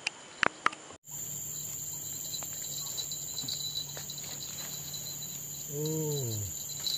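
Steady chirring of crickets or similar insects, with a few sharp clicks in the first second and a short voiced exclamation about six seconds in.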